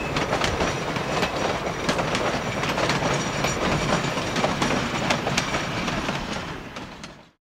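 Narrow-gauge Cumbres & Toltec passenger coaches rolling past, their wheels clicking and clattering over the rail joints, with a faint high wheel squeal now and then. The sound fades out near the end.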